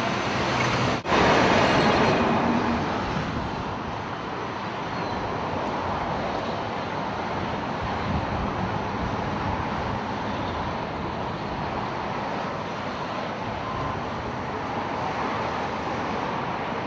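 Road traffic: cars passing on the street with a steady rush of tyre and engine noise, loudest for a second or two just after a brief dropout about a second in.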